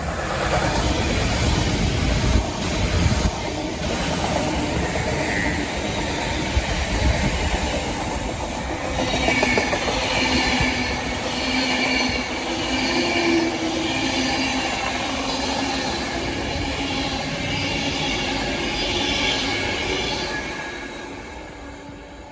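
Electric train running past at close range, a dense rumble of wheels on rail. About nine seconds in, several steady high-pitched tones join it for some ten seconds, then the sound fades away near the end.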